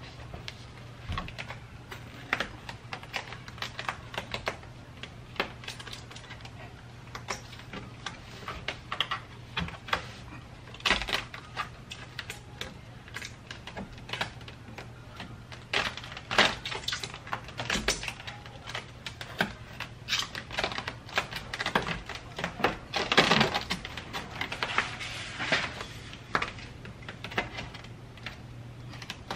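Irregular clicks, crackles and rustles of hands working plastic roof trim and the headliner inside a stripped car's cabin, busier in a few spells, over a steady low hum.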